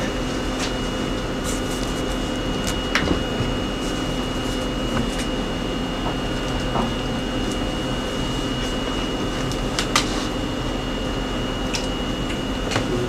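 Steady room hum and hiss with a faint constant high whine, broken by a few brief clicks: one about three seconds in, one about ten seconds in and one near the end.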